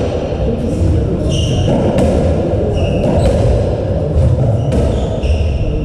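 Racketball rally on a squash court: a series of sharp ball hits off rackets and walls, with brief high squeaks of shoes on the court floor, over a steady low rumble in the court.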